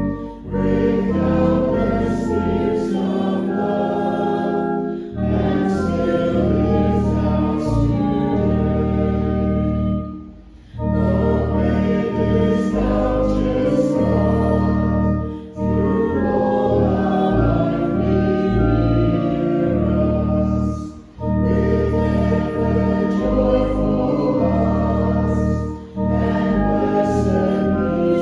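A group of voices singing a hymn together with organ accompaniment, in phrases about five seconds long separated by brief breaths.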